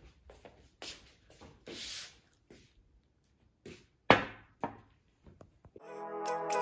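Scattered light clicks and rustles of handling, with one sharp knock about four seconds in; soft music begins near the end.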